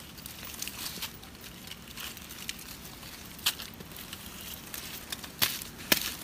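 Dry leaf litter and coconut husks crackling and rustling as hands and a knife work through them, with a few sharp snaps in the second half.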